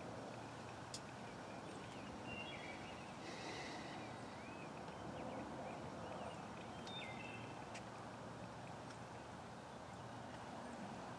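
Quiet open-field ambience: a steady hiss with a few faint, short bird chirps scattered throughout.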